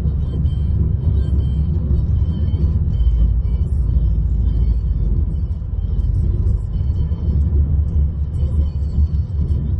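Steady low rumble of a car in motion, heard from inside the cabin, with faint music above it.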